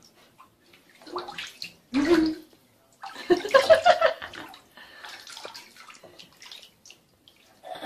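Water splashing and sloshing in a filled bathtub as a small monkey swims and a child paddles beside it, in irregular bursts, the loudest from about three to four and a half seconds in.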